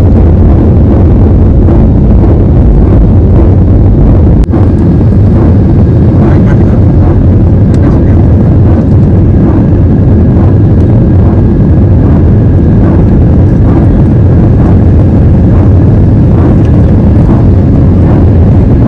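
Loud, steady airliner cabin noise from the jet engines and rushing air, with a single sharp click about four and a half seconds in.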